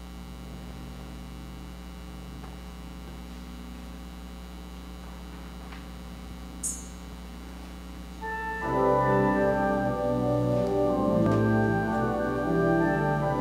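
A steady low hum, then an organ begins playing sustained chords about two-thirds of the way through and carries on.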